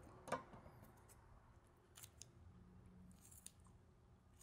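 Kitchen shears cutting through a trout's neck to take off the head: several faint, sharp snips and crunches of the blades through bone.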